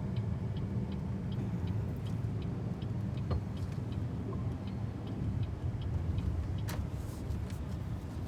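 A BYD Seagull's turn-signal indicator ticks evenly, about twice a second, over the low road and tyre rumble inside the electric car's cabin. A sharper click comes about three seconds in, and another about seven seconds in.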